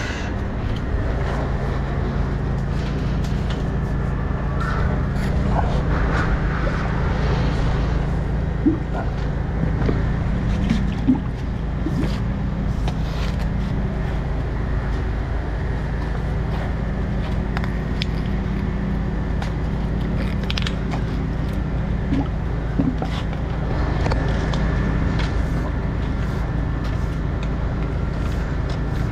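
High-pressure sewer jetting machine running steadily, its engine drone unbroken while the jetter hose works down the drain, with a few light knocks scattered through.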